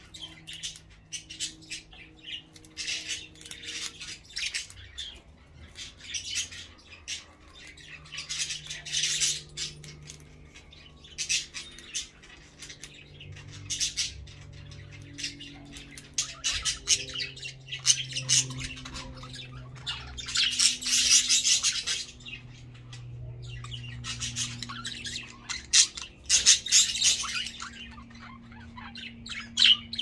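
Pet budgerigars chattering and warbling: rapid strings of high chirps in repeated bursts, the busiest about a third of the way in and again near the end.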